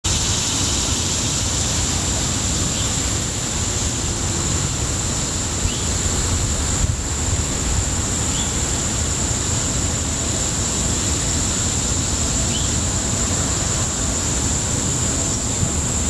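Steady rushing background noise with a constant high-pitched whine over it; no distinct tapping stands out.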